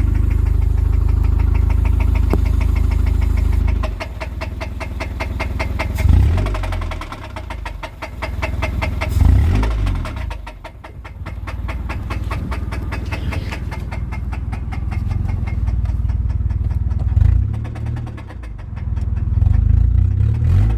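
1999 Honda Civic's four-cylinder engine running with a steady rhythmic knock from a worn connecting-rod bearing (rod knock). The engine is revved up and let back down briefly about four times.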